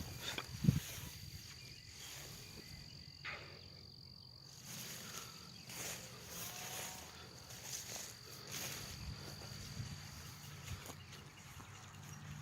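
An insect trilling steadily on one high note, with a single sharp knock about a second in.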